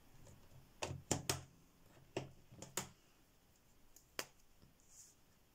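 Sharp, irregular clicks and taps of gel crayon tubes and their plastic lids being handled and set down, about seven in all, several close together in the first three seconds and a last one a little after four seconds.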